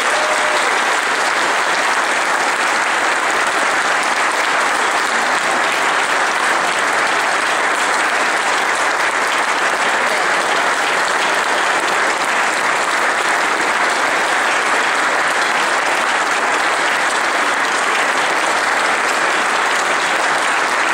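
A large crowd applauding steadily, a dense unbroken clapping that keeps up without letup.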